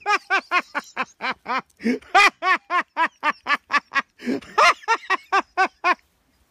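A man laughing hard in a high-pitched cackle: rapid 'ha' bursts about four a second, broken twice by a gasping in-breath, stopping just before the end.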